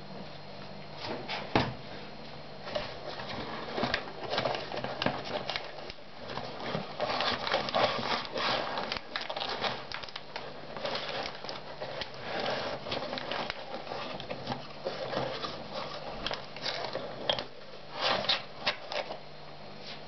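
Hand work at a bench: irregular rustling of paper and cloth with light clicks and taps of small parts being handled. There is a sharp knock about a second and a half in and a cluster of louder clicks near the end.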